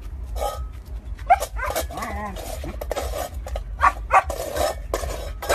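German Shepherd puppy giving several short barks and yips.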